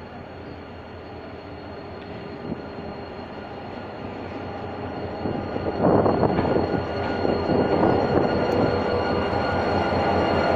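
GM GT22 diesel-electric locomotive approaching and passing close, its engine and running gear growing steadily louder, then much louder about six seconds in as it comes alongside.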